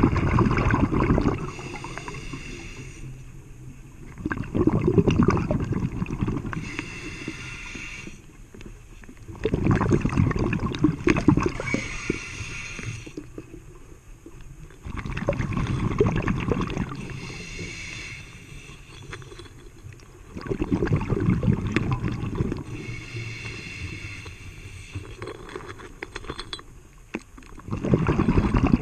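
Scuba diver breathing through a regulator underwater: a rush of exhaled bubbles about every five to six seconds, six times, with a fainter hiss between breaths.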